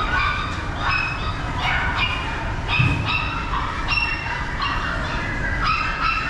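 Dogs barking in short, repeated calls, several overlapping at different pitches, over a steady low rumble.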